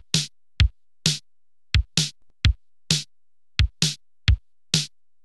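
Electronic music: a bare drum-machine beat, kick drum and snare-like hits alternating, with nothing else between them.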